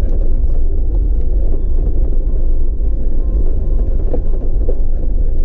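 Jeep driving slowly up a loose, rocky off-road trail, its engine and drivetrain making a steady low rumble.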